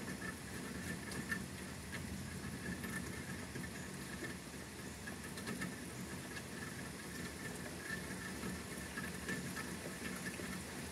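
Rain pattering steadily during a thunderstorm, with scattered light drip taps.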